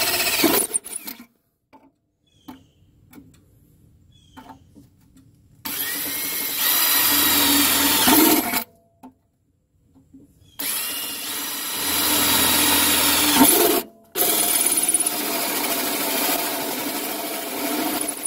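Cordless drill spinning a small hole saw through oily sheet metal, in four runs of a few seconds each with a pause and a few light clicks between the first two.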